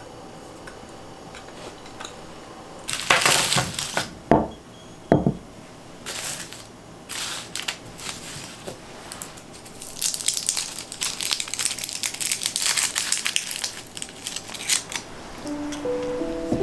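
Clear plastic wrappers of hard candies crinkling as they are handled, in irregular bursts, busiest from about ten seconds in. There is a first burst about three seconds in and two knocks around four and five seconds in. Music comes in near the end.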